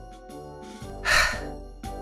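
Soft background music, with one short breathy vocal sound from a cartoon character about a second in.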